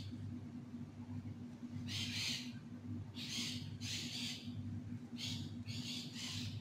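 Short scratchy rustles of yarn pulled through the fabric by a crochet hook, six quick bursts in the second half, as single crochet stitches join two crocheted panels; a steady low hum underneath.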